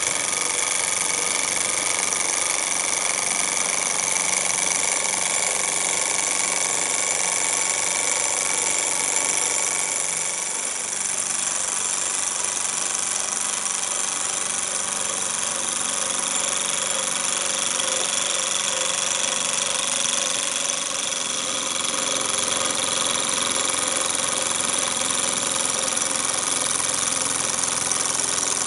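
Davies Charlton toy hot air (Stirling-type) engine running steadily at speed, its flywheels spinning, with a steady hiss over the mechanical running.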